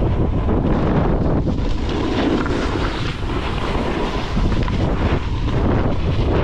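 Wind buffeting the microphone of a camera moving fast downhill, a loud, continuous low rumble, with the hiss and scrape of carving over packed, groomed snow.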